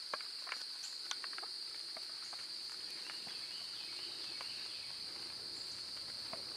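Steady high-pitched insect chorus in the woods, with a few faint clicks scattered through it.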